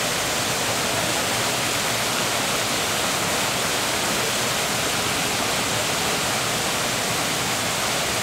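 Waterfall pouring from a rock wall into a pool, a steady, even rush of splashing water.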